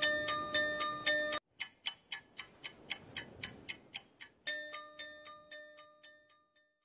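Outro music of clock-like ticking, about four ticks a second, over a held pitched tone. The tone cuts out abruptly a little over a second in and comes back about three seconds later. It all fades out near the end.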